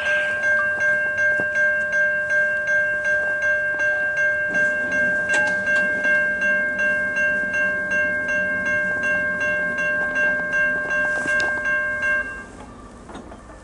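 Railroad grade crossing bell ringing at about four strokes a second, stopping suddenly near the end. A low rumble from the approaching freight train comes in about halfway through.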